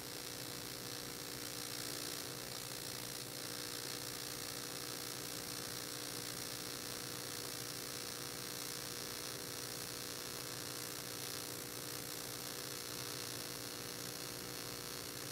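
AC TIG welding arc on aluminum plate, a steady hum with a hiss over it as filler rod is fed into the puddle. The pass is run with too little heat, the base metal not hot enough, so the bead crowns up instead of wetting in.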